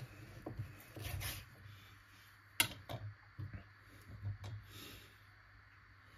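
Large kitchen knife sawing through the dry, hard crust of an air-dried pork tenderloin on a wooden cutting board. A sharp tap comes about two and a half seconds in, followed by a few quieter knocks as the pieces are handled on the board.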